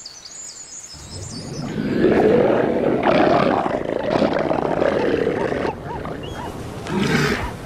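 Bull elephant seal calling: a loud, rough, guttural rumble made of rapid pulses. It starts about a second in and eases off after about five and a half seconds, with a short, quieter burst near the end.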